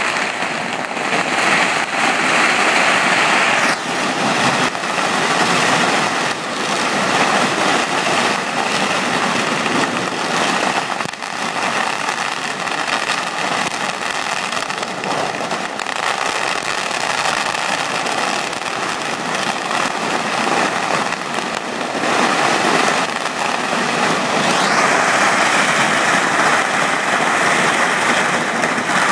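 Strings of firecrackers going off in a continuous dense crackle of rapid bangs, louder in the first few seconds and again near the end.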